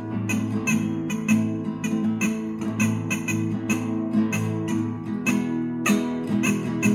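Acoustic guitar strummed in a quick, steady rhythm, with a rubber chicken used as the pick.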